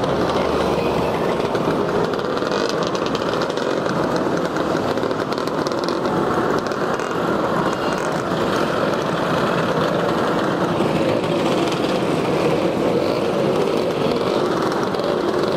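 Many Vespa and Lambretta scooter engines running together in a dense, steady buzz as a large pack of scooters rides slowly past.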